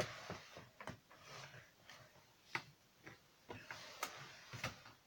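Faint handling of tarot cards: a few light, irregular clicks and soft rustling as a dropped card is picked up and handled.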